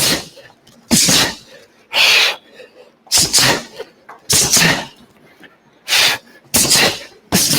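A boxer's sharp, forced breaths out through the mouth, one with each punch of a hook-and-uppercut combination, coming about once a second and a little faster near the end.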